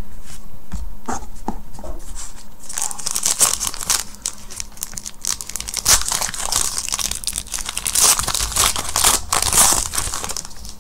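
A 2015 Panini Gridiron Kings trading-card pack being torn open, its wrapper crinkling and crackling densely from about three seconds in until near the end. Lighter clicks of cards and wrapper being handled come before.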